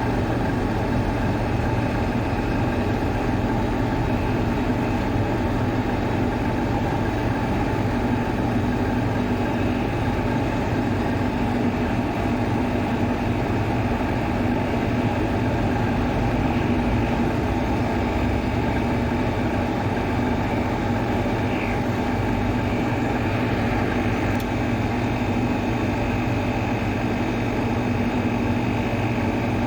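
Water cooler fan motor running steadily with a constant electric hum and a low steady tone.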